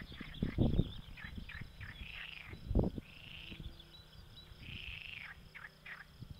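Frogs calling from a pond: a chorus of short, repeated croaks, with a faint engine droning in the background.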